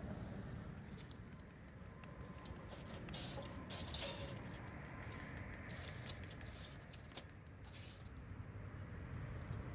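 Campfire cooking sounds: scattered small crackles and clicks, thickest in the middle, over a low steady rumble.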